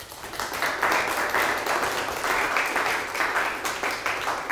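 Audience applauding, a dense patter of many hands clapping that swells in over the first second and holds steady.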